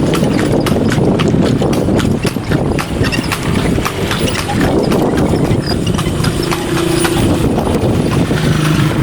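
A carriage horse's hooves clip-clopping in a continuous run of strikes on a paved road as it pulls a kalesa, a horse-drawn carriage.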